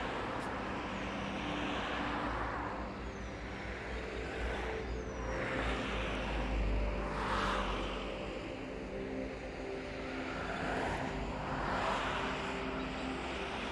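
Road traffic: several vehicles pass one after another, each a rush of tyre and engine noise that swells and fades, over a steady low rumble.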